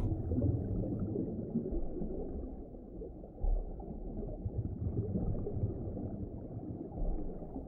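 Muffled underwater ambience: a low rumble with faint gurgling and no high sounds.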